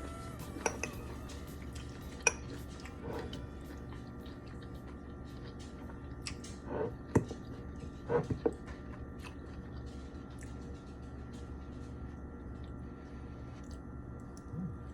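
A few sharp clinks and taps of a utensil against cookware, over a steady low hum.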